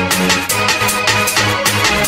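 Electronic music with a fast, steady beat, about four beats a second.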